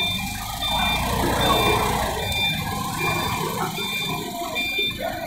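Forklift engine running as it travels with a loaded pallet, its warning beeper sounding a short high beep about once a second.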